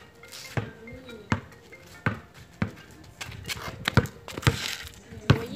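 Basketball bouncing on hard ground, about six separate bounces at uneven gaps of roughly half a second to a second and a half. A brief faint voice sounds about a second in.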